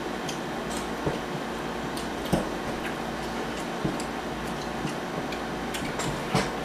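Mouth sounds of someone chewing and eating: irregular soft clicks and smacks, over a steady low room hum.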